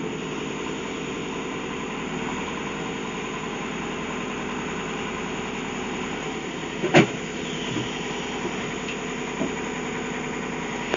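Heavy diesel engine of the machinery running steadily, with a single sharp knock about seven seconds in and a few lighter clanks.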